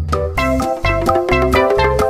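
Background music with a steady beat: repeating bass notes under a melody.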